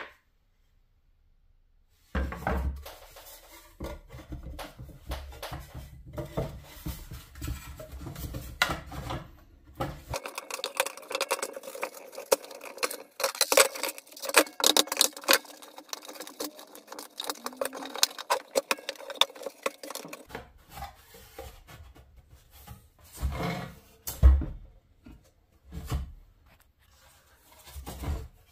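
Hard objects being handled and set down: irregular clicks, light clatter and occasional louder knocks, after about two seconds of silence.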